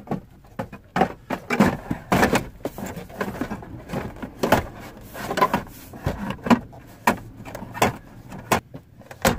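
Plastic glove compartment being pushed and worked back into a car's dashboard: an irregular run of hard plastic knocks, clicks and rattles, several a second.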